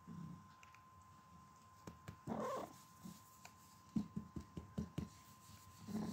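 Domestic cat making a short, soft meow about two seconds in, followed by a run of faint short low sounds.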